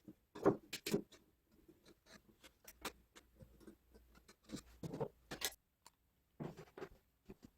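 Irregular clicks and light knocks of small hard parts being handled, with louder clatters about half a second in, around five seconds and near six and a half seconds.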